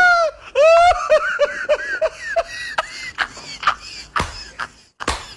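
Shrill, high-pitched laughter: a drawn-out cry that breaks into a fast run of short cackles, about four a second. A string of sharp clicks or taps follows in the second half.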